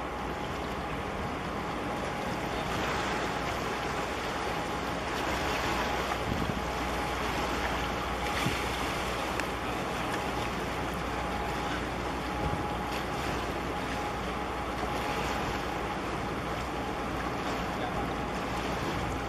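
Steady wind on the microphone and water washing against concrete breakwater tetrapods, with a faint steady hum.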